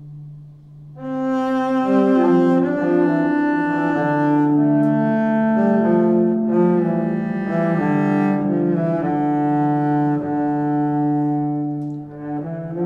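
Background music of slow, sustained, overlapping notes. It swells in about a second in and dips briefly near the end before a new phrase begins.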